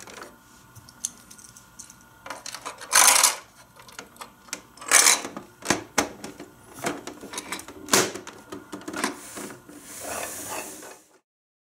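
Hard plastic clicks, clacks and knocks as a Micro Machines toy semi-truck playset is folded up and its trailer lid shut, the loudest knocks about three and five seconds in. Near the end a short rushing scrape as the closed truck is pushed across carpet, then the sound cuts off.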